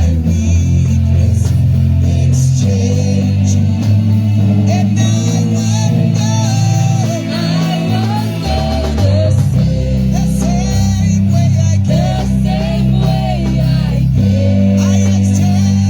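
Gospel worship band playing, with a prominent bass guitar line, guitar and a singing voice carrying a wavering melody over a steady beat.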